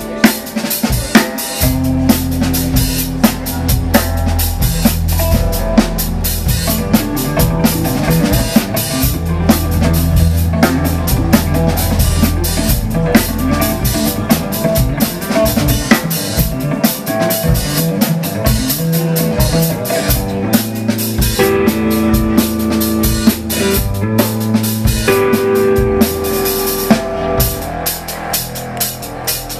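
Instrumental jazz-funk band playing live: a busy drum kit with bass drum, snare and rimshots, over electric guitar, keyboards and long held low bass notes.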